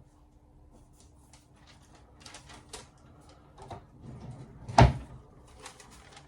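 Handling noises on a work surface: a run of short, crisp, scratchy rustles and clicks, then one loud knock about five seconds in.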